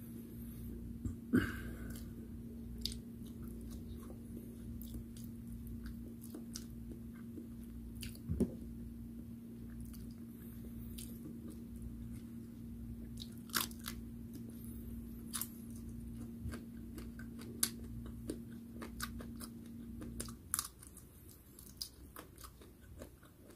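Close-up mouth sounds of a person chewing and crunching fried food, with scattered sharp clicks and smacks. A steady low hum runs underneath and stops shortly before the end.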